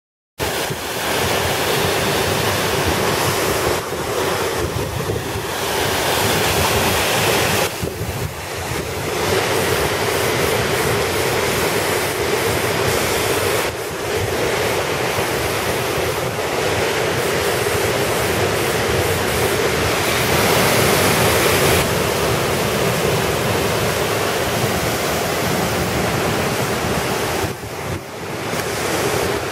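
Steady, loud rush of a waterfall and the stream below it, mixed with wind blowing on the microphone.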